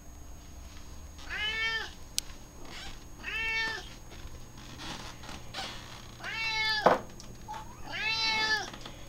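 Domestic cats meowing for food four times, about two seconds apart; each call rises and then falls in pitch. These are hungry cats begging in expectation of a meal. One sharp knock comes between the third and fourth meows.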